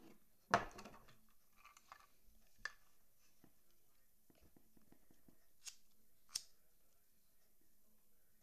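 Handling of a paracord bracelet in a metal jig: a knock about half a second in and a few light clicks. Two sharp clicks a little past the middle are a lighter being struck; its flame is lit on the cord end by the close.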